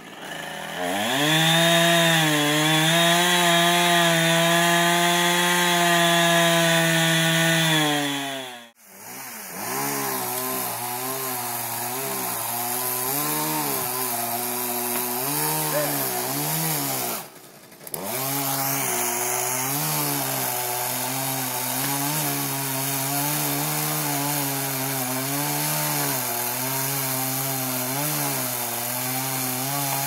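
Gasoline chainsaw cutting into a large oak trunk during felling. It is held at full throttle for about seven seconds, then the revs fall away and it drops out briefly. It runs on with the revs rising and falling under the load of the cut, with another short break a little past halfway.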